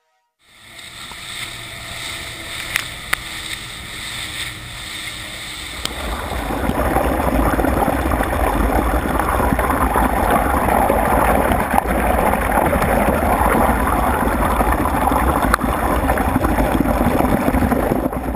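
Steady rushing noise of a boat under way with wind on the microphone, a low rumble beneath it, growing louder about six seconds in.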